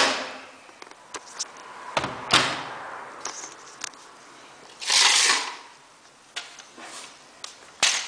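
Hoover Quattro Powerjet AE140 washing machine giving a few sharp clunks and knocks, with a short hissing rush about five seconds in.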